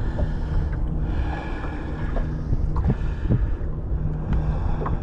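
Steady low hum of a fishing boat's motor, with wind noise on the microphone.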